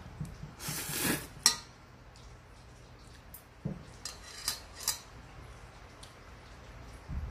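Cutlery clicking against dishes as someone eats at a table, with a sharp clink about one and a half seconds in and a few lighter clicks between the fourth and fifth seconds.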